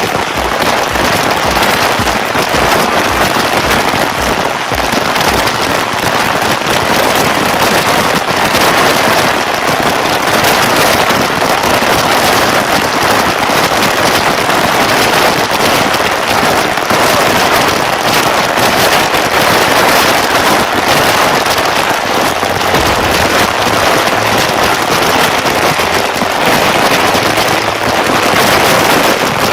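Waterfall: a loud, steady rush of falling water, with a crackling, spattering texture.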